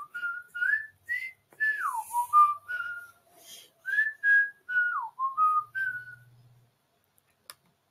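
A person whistling a tune: a string of short notes with two downward swooping slides, stopping about six seconds in. A single faint click follows near the end.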